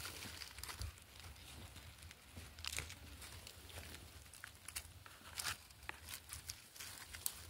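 Faint rustling and crinkling of dry leaves, grass and loose soil as gloved hands scrape earth away and pull a wild yam tuber out of its hole, with scattered small crackles.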